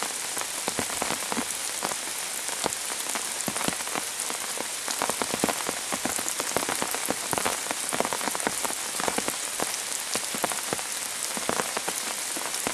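Heavy, steady rain pouring down, with many sharp separate drop strikes close by.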